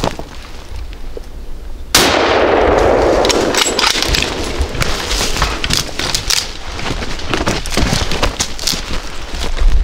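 A single gunshot about two seconds in, its report ringing on for a second or so. Scattered cracks and knocks follow.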